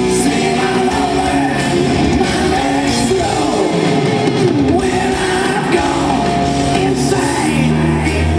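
Live hard rock band playing loud, with singing over electric guitar and drums, heard from the audience in a large hall.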